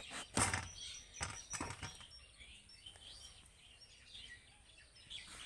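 Long green eggplant pushed down onto a bonti blade and sliced lengthwise: one sharp cut about half a second in, then three softer cuts over the next second and a half. Faint bird chirps follow.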